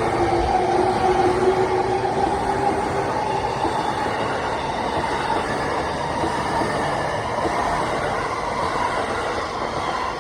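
JR East electric commuter train going by, its steady rolling rumble easing off slowly toward the end. A faint steady whine runs through it for the first few seconds.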